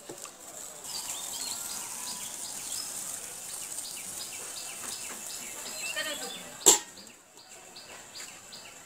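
Small birds chirping over and over outdoors, over the low steady hiss of curry simmering in a steel kadai. About two-thirds of the way through, a single sharp metallic clack as the aluminium lid is set on the pan.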